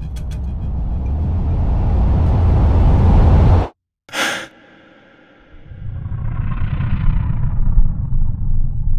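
Wind rushing over the microphone and engine rumble from a KTM 1290 Super Adventure motorcycle being ridden. The noise builds for about three and a half seconds, then cuts off abruptly. After a brief burst and a short lull, it picks up again more softly.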